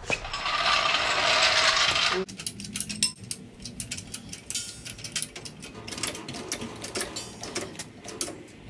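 A floor jack is rolled along concrete with a loud rushing scrape for about two seconds. Then its handle is pumped to raise the axle and take the weight off the front leaf spring, giving a run of quick metallic clicks and ratcheting.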